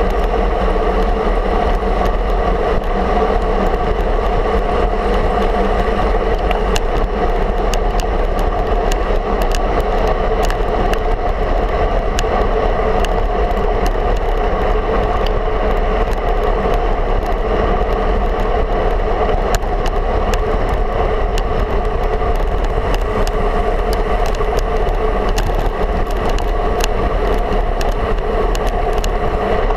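Wind rush and road vibration on a road bike's handlebar-mounted camera while riding on asphalt at speed: a loud, steady rush with a low rumble and scattered small rattling ticks.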